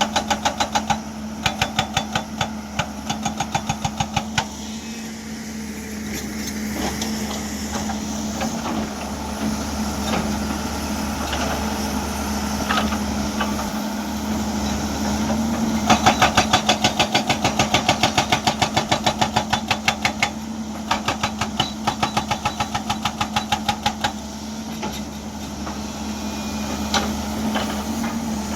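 Hydraulic breaker hammer on a 2007 Hyundai excavator pounding rock in rapid runs of blows, several a second, over the steady drone of the diesel engine and hydraulics. The hammering stops after about four seconds, leaving the engine running for some twelve seconds, then resumes in two runs before stopping again.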